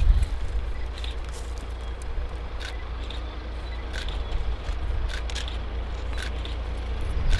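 SU45 diesel locomotive approaching in the distance: a low rumble that grows slowly louder towards the end, with short high chirps or clicks over it.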